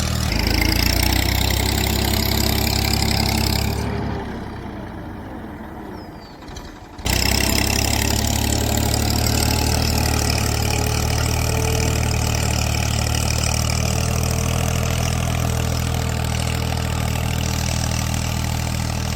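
An engine or motor running steadily with a low hum. It fades away about four seconds in and cuts back in suddenly about three seconds later, then runs on evenly.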